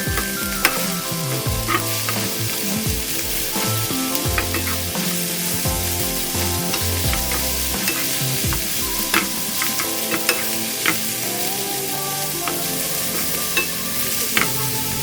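Food sizzling in a hot frying pan as it is stir-fried, with scattered sharp clicks and scrapes of a utensil against the pan. Background music with a steady bass line plays underneath.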